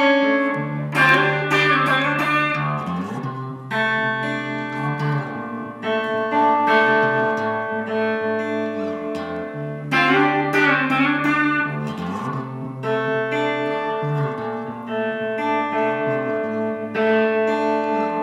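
Les Paul-style electric guitar playing an instrumental piece: ringing chords over a held low bass note, in a figure that repeats.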